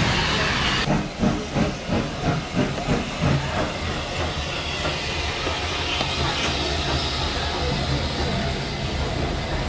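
Southern Railway steam locomotive working slowly past the platform. From about a second in there is a run of quick exhaust chuffs, about three a second, for two or three seconds, then a steady hiss of steam over a low rumble.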